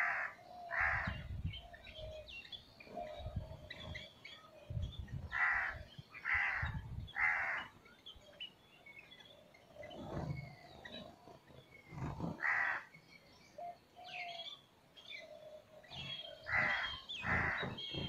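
Birds calling: loud, harsh calls in bunches of two or three, with fainter chirps and twitters between them.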